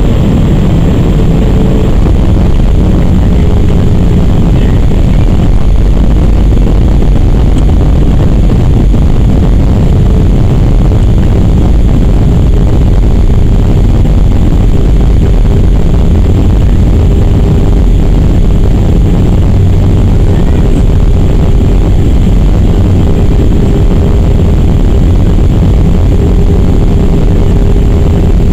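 Cabin noise of an Airbus A319-100 moving on the ground after landing: a steady, loud low rumble from the jet engines and the rolling airframe, with a steady hum over it.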